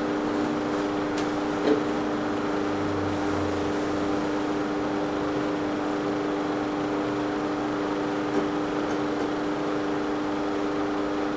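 Steady room hum: a constant drone with a few even tones over a soft hiss, with a faint tick about two seconds in and again near the end.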